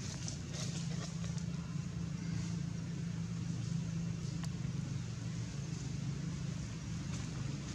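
Steady low rumble, with a few faint clicks.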